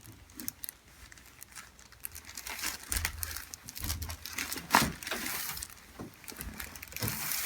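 Rustling and crinkling as a patient turns over and settles on a chiropractic treatment table, with one sharp crack about halfway through.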